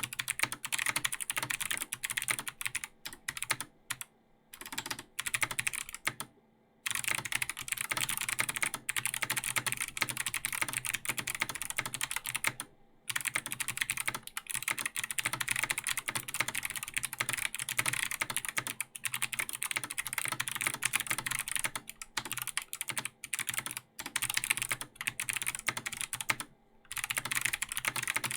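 Fast continuous typing on a mechanical keyboard with Kailh Box Jade clicky switches: dense crisp clicks with a few short pauses between bursts.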